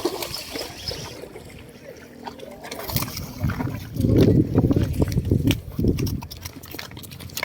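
Wind buffeting the microphone in gusts, a low noisy rumble that is loudest from about three and a half to six and a half seconds in.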